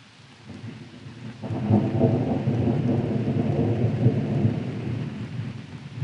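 A long roll of thunder over steady rain. The rumble builds from about half a second in, swells suddenly a second later, and slowly dies away near the end.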